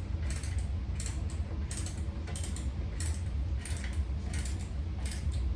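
Small hand tool turning a bolt on a flat-pack table: short metallic scraping clicks that come in quick pairs, a pair about every 0.7 seconds, over a steady low hum.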